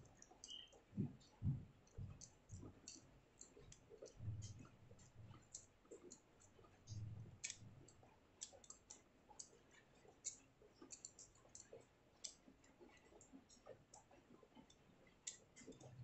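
Faint, irregular small clicks and ticks of a screwdriver turning the retaining screw into an aluminium Gomexus knob on a baitcasting reel handle, with a few soft low knocks from handling the reel.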